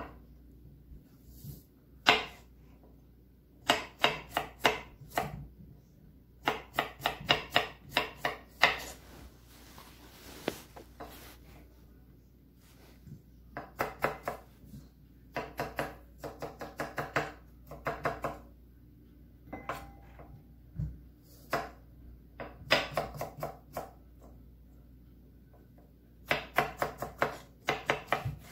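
Chef's knife dicing jicama on a wooden cutting board: runs of quick chopping strokes, about four a second, with short pauses between the runs.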